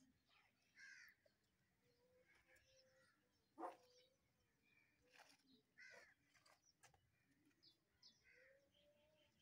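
Faint animal calls: short high cries and chirps every second or so, the loudest a sharp cry about three and a half seconds in.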